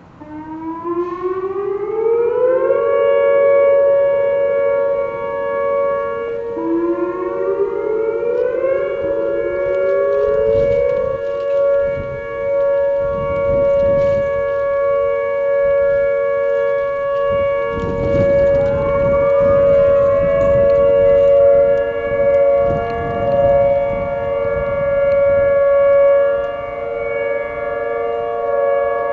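Several outdoor warning sirens (Whelen 2806 and 2905, Federal Signal models) sounding a steady Alert signal for a test. They start up one after another, each winding up in pitch to a held tone: one in the first couple of seconds, another around eight seconds, a third around twenty seconds. Their tones overlap in a layered chord, and a low rumbling noise comes and goes in the middle.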